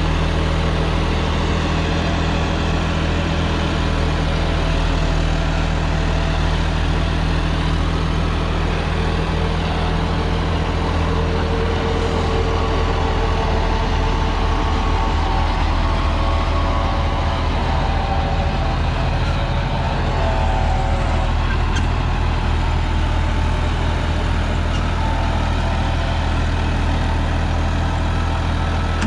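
John Deere tractor's diesel engine running steadily under load, pulling a 10-foot PTO-driven rotavator that churns through dry soil.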